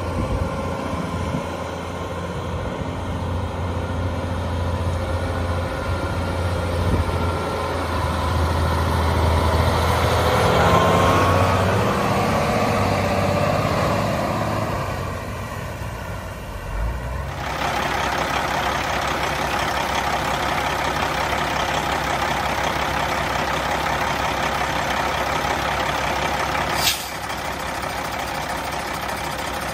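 Caterpillar C15 straight-six diesel of a Kenworth W900 log truck running as the truck drives around, growing louder as it comes close about ten seconds in. After about seventeen seconds the same engine is heard idling close up under the open hood, with one sharp click near the end.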